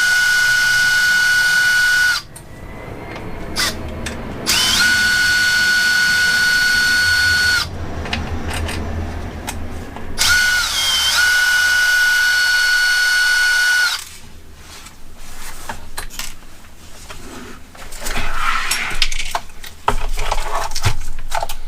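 Small electric screwdriver with a hex bit running in three short bursts of a steady high whine, each spinning up quickly, as it drives out small hex bolts on an RC car chassis. After the third burst come light clicks and rattles of parts being handled.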